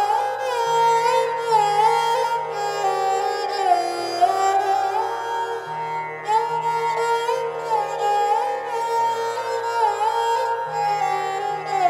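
Instrumental background music: a string melody with sliding, bending notes over low held bass notes that change every second or so.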